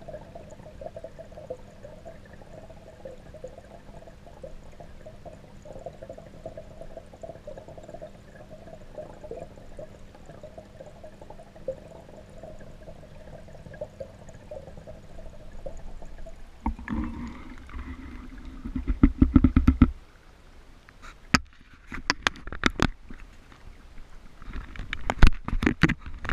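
Muffled underwater sound from a camera submerged in a small goldfish pond, with a steady low hum. About two-thirds of the way through, heavy sloshing and splashing as the camera is pulled up out of the water, then sharp knocks and clatter from handling near the end.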